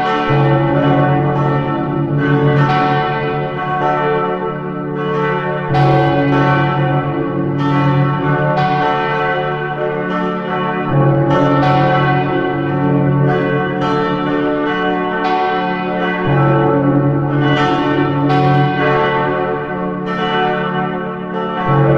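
Several church bells ringing continuously, the strikes coming close together so their tones overlap and hang in the air. The peal falls into a pattern that repeats about every five seconds.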